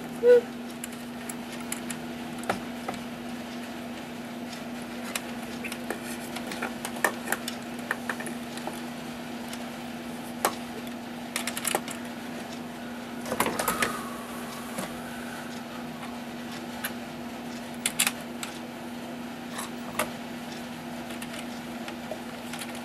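Small clicks, taps and knocks of a cuckoo clock bellows being handled and fitted into the wooden clock case, with a brief clatter about 13 seconds in, over a steady low hum.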